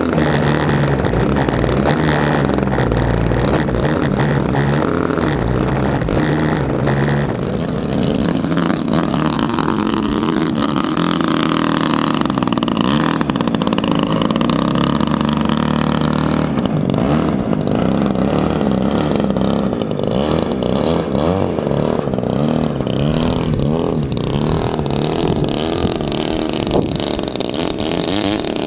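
Petrol engine of a large RC model Piper L-4 Grasshopper running with its propeller spinning, its speed rising and falling now and then as it is throttled.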